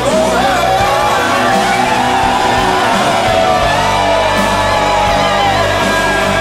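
A group of men loudly shouting and singing together in celebration, with music playing under them.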